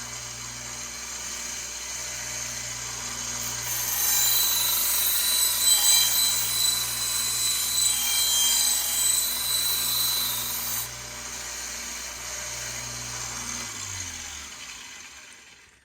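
Electric grinder running with a steady motor hum while a steel knife blade is ground against the abrasive, a hissing grind that grows louder for several seconds in the middle as the bevel is reworked. Near the end the motor is switched off and winds down to a stop.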